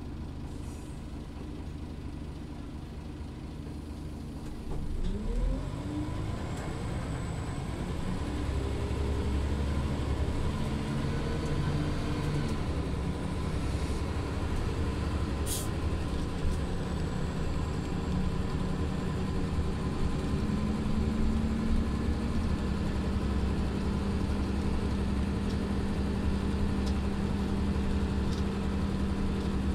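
Scania OmniLink CL94UA articulated city bus heard from on board. The engine runs at idle, then about five seconds in it revs up as the bus pulls away, rising in pitch through gear changes to a steady run. A brief sharp noise comes about halfway through.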